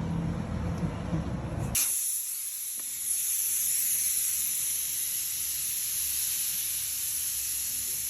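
Compressed air hissing steadily from a tyre-inflator gun as it fills a tyre, starting abruptly about two seconds in after a low rumble.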